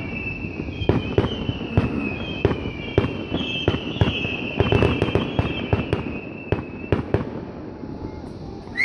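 Fireworks going off: a rapid series of sharp bangs overlaid with high whistles sliding slightly down in pitch, thinning out and dying away after about seven seconds.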